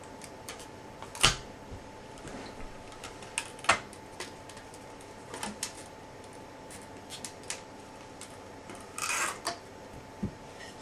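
Scattered clicks and taps of plastic packaging and parts being handled during an unboxing, with a brief crinkling rustle about nine seconds in and a low knock just after, over a faint steady tone.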